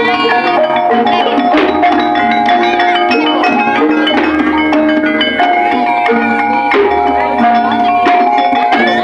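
Loud gamelan-style music through a sound system: struck metal-keyed percussion rings out held notes over a steady beat of hand-drum strokes.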